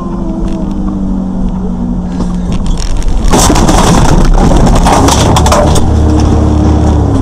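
Vehicle engine running, its pitch slowly falling, then about three seconds in a loud rough rush of crunching noise with scattered knocks lasting about two seconds during a collision on a snowy road with a sliding log truck. The engine runs on steadily afterwards.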